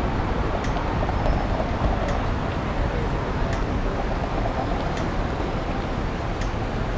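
Steady city street traffic at an intersection, cars driving and turning, with voices of people waiting nearby.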